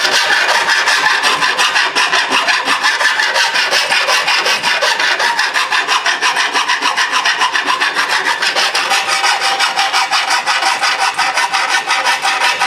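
Hand file rasping back and forth in quick, even strokes around the edge of a freshly hole-sawed hole in a sheet-metal plate, deburring the rough cut edge.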